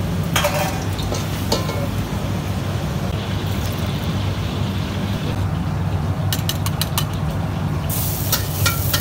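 Steady low roar from a commercial wok station, with metal ladle clinks against the pot and wok. About eight seconds in, a sizzle starts as chopped garlic goes into the hot oil.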